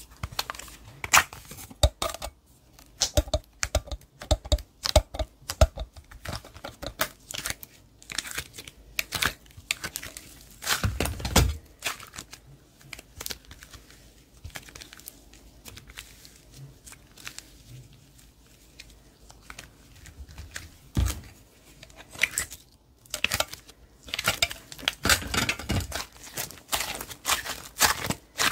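Slime being squished and stretched by hand: irregular sticky crackles, clicks and pops, with denser bursts of squelching about a third of the way in and again near the end.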